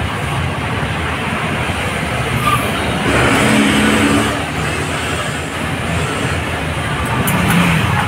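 Street traffic: a steady wash of passing road vehicles, with one vehicle's engine rising louder about three seconds in and fading again a second later.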